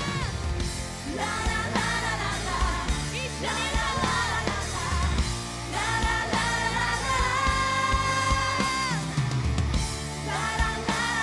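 Female vocals singing over a full rock band with electric bass and drums, holding one long note about two-thirds of the way through.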